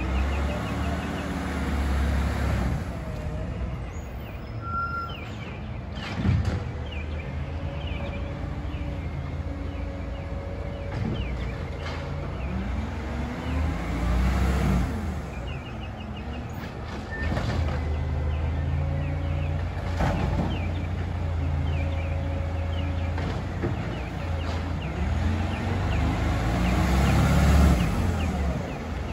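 Garbage truck's diesel engine running steadily, its revs rising and falling again and again as the truck creeps along the street between bins, with a few sharp clunks along the way.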